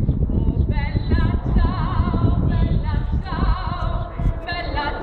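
A man sings a melody with a wide vibrato into a microphone, amplified through a PA speaker, accompanied by a strummed acoustic guitar.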